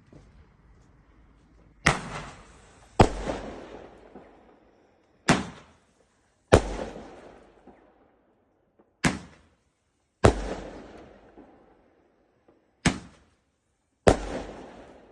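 Gemstone 5-shot Roman candle firing, four shots in all: each comes as a pair of sharp loud bangs about a second apart, the shot leaving the tube and then its report breaking. The second bang of each pair is heavier, with a longer echoing tail.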